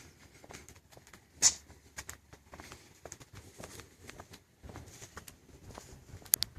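Plastic bubble wrap crinkling and crackling as it is handled, in scattered small clicks, with one sharp snap about a second and a half in and a few more snaps near the end.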